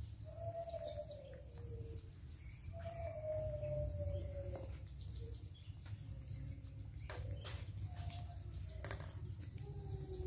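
Baby monkey whimpering in long, thin, slightly falling coo calls, roughly one every second or two, with short high bird chirps between them. A few sharp knocks come about seven to nine seconds in.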